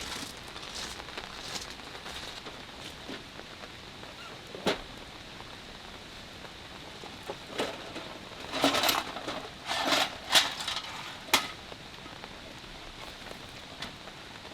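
Steady rain falling, with a few knocks and clatters in the second half, the loudest near the end.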